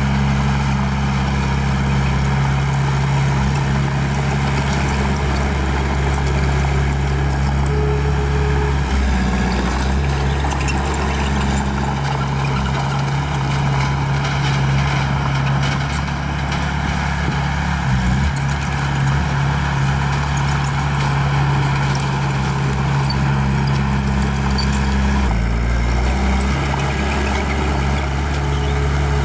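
Small bulldozer's diesel engine running steadily, its note shifting and dipping a few times.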